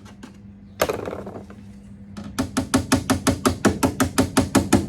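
A steel hammer tapping a sheet-steel body repair panel in a fast, even series of sharp knocks, about six a second, to knock it flush. About a second in there is a single louder hit with a short ringing tail.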